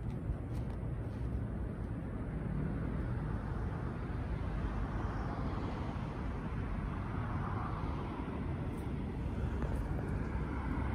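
Steady low outdoor background rumble with no distinct events, slightly swelling midway.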